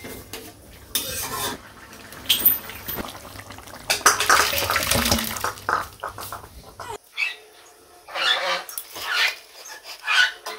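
A metal spatula scrapes around a wok of fish curry. Then the thick, liquid curry slides and pours out of the wok into a steel bowl, the loudest and longest stretch. Near the end come short clinks and scrapes of the spatula in the bowl.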